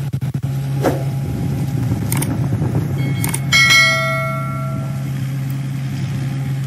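Outdoor recording played back from the preview clip: a steady low engine hum, from the ride-on mower working the pitch, starting suddenly. About three and a half seconds in, a ringing, bell-like tone sounds and fades over about a second.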